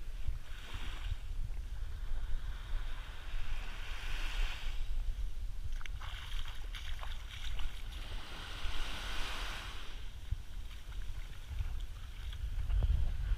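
Small waves lapping and washing onto a sandy beach, a soft hiss that swells every two to three seconds, with wind buffeting the microphone as a steady low rumble.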